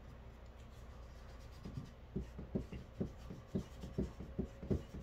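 Paintbrushes dabbing and stroking on stretched canvases: soft, irregular taps, a few a second, starting about a second and a half in.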